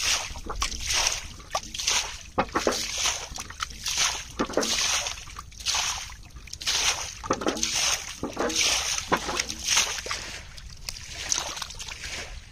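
Hands sloshing and splashing through shallow muddy water while groping in the mud for fish: an uneven run of short wet swishes, about one or two a second.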